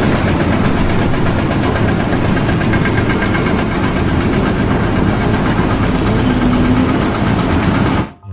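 Loud, steady running of an engine or engine-driven machine, cutting off abruptly near the end.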